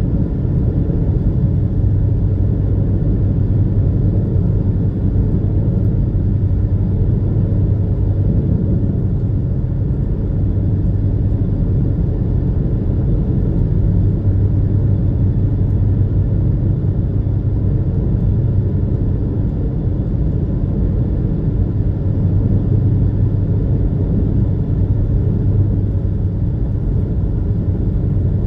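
Engines of the Super Jet high-speed passenger ferry running steadily under way, a loud, even low drone with a constant hum.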